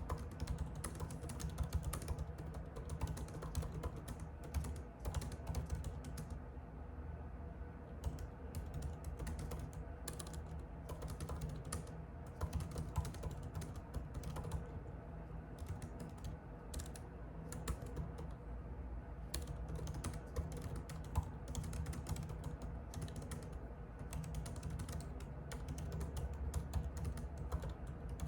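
Typing on a computer keyboard: fast, irregular runs of key clicks broken by a few brief pauses, over a low steady hum.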